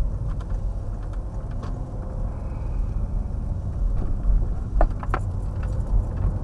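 Car engine and tyre rumble heard from inside the cabin as the car drives slowly along a street, with a couple of sharp knocks about five seconds in.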